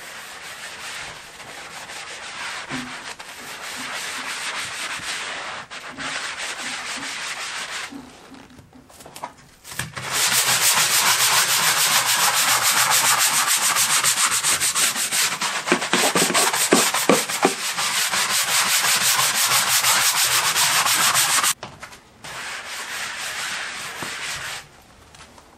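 Hand-held bath scrubber rubbed hard and fast over a wet, wax-stripper-foamed wooden floor, a rapid scratchy scrubbing that strips the old wax. It pauses twice, and the middle stretch is the loudest and fastest.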